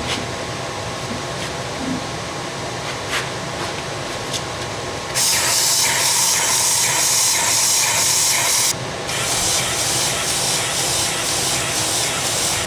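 Compressed air hissing in two long blasts of about three and a half seconds each, one after the other, over a steady low shop hum.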